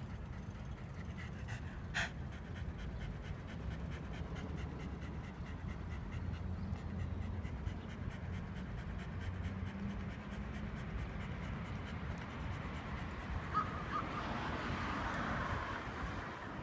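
Shiba Inu panting steadily with its tongue out, in quick even breaths. There is a single sharp click about two seconds in, and a hiss swells up near the end.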